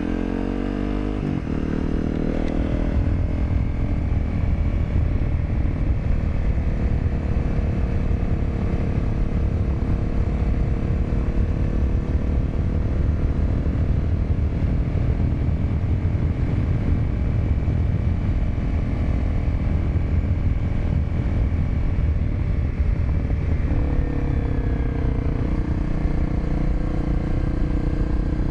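Honda CRF250L's single-cylinder four-stroke engine running while riding along a gravel road, heard from the rider's seat with steady wind and tyre noise. The engine pitch shifts within the first couple of seconds and again a few seconds before the end, as the revs change.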